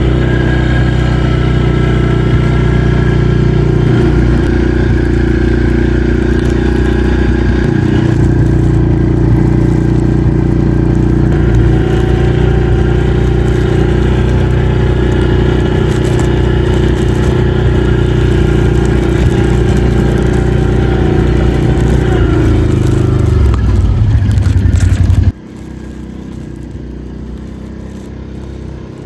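Can-Am ATV engine running steadily under way, its pitch rising just before it drops sharply to a much quieter level about 25 seconds in.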